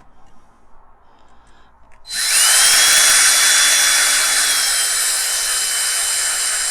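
Small electric drill starting about two seconds in, its high whine rising as it spins up and then running steadily while it drills a small pit into the centre of a rivet on a diecast model's baseplate. Before it starts there are only a few faint clicks.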